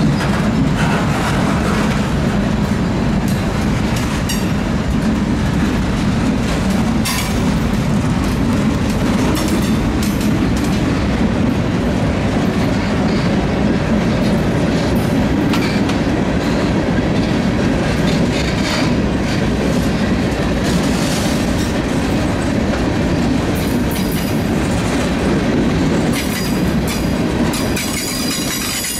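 CSX freight train rolling past close by: a steady heavy rumble with a rapid clickety-clack of wheels over the rail joints, and a thin high wheel squeal coming in near the end.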